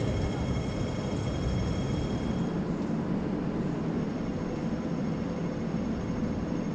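Steady low rumble of typhoon wind buffeting the microphone over outdoor street ambience, with a few faint steady hums above it.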